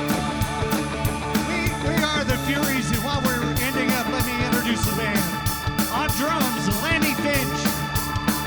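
Live rock band playing, with a lead line of bending, sliding notes over a steady drum beat.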